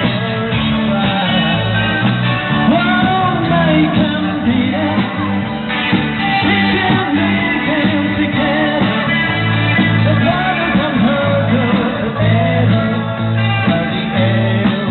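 Live rock band playing, with bass, guitar and drums under a lead singer, recorded from the audience.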